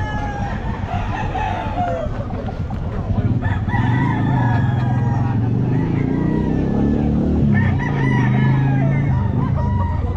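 Several gamefowl roosters crowing and clucking, call after call overlapping. A steady low drone joins about three seconds in and fades near the end.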